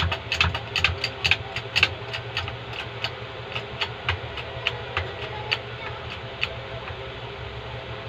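Sharp metallic clicks from working a hydraulic bottle-jack press, about three a second at first and slowing to about one a second before dying out, over a steady hum.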